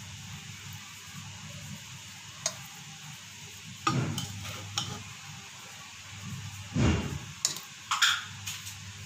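Metal spoon scraping and knocking against a steel pot while turning cooked rice: a handful of separate scrapes and clinks with pauses between them, the loudest a dull knock about seven seconds in.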